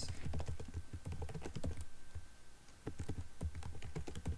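Computer keyboard keys being typed in quick, irregular runs of clicks, with a short pause a little after halfway.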